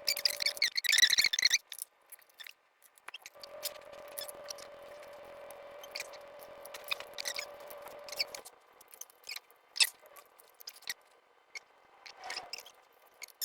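Small electric motor of a 1/24-scale RC crawler whining at a steady pitch, stopping and starting twice, with light clicks and scrapes while it is stopped.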